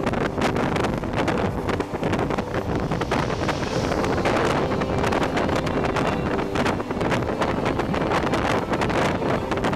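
Wind blowing hard on the microphone at the open window of a moving passenger train, over the steady rumble of the train running on the rails with irregular clicks and knocks.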